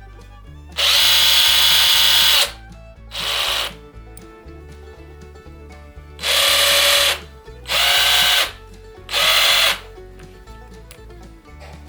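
Cordless power driver's motor run in five bursts: one long run of nearly two seconds, a short one, then three runs of about a second each. Each run spins down as the trigger is released, without impact hammering.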